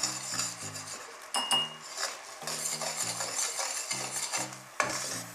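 Metal spatula stirring and scraping around a stainless-steel kadai of bubbling sugar syrup, with clinks of metal on metal. One clink rings briefly about a second and a half in.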